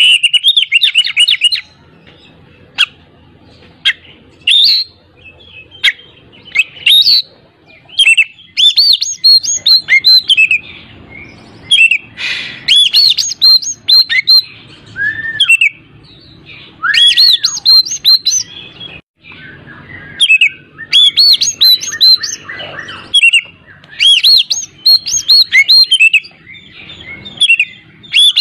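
Oriental magpie-robin (kacer) singing loudly in repeated bursts of rapid, varied whistled notes, with short pauses between phrases. It is the full, excited kind of song used to lure silent kacer into singing.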